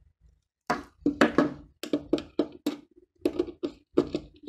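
Screwdriver and plastic electrical fittings clicking and knocking in an irregular series of sharp taps as wires are screwed into the terminals.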